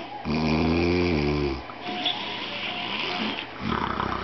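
A man snoring heavily, the kind of snore said to sound like sawing wood. Soon after the start comes one long, loud pitched snore lasting over a second. A quieter noisy breath follows, and the next snore builds near the end.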